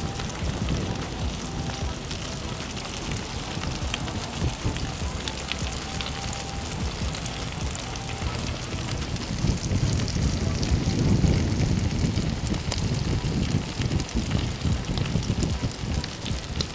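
Smash burger patties sizzling and crackling in their fat on a Blackstone griddle's flat-top. A low rumble builds up about ten seconds in.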